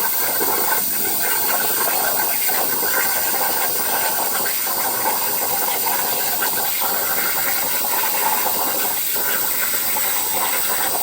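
Plasma cutter cutting 1/4 inch steel plate: a steady hiss of the arc and air jet.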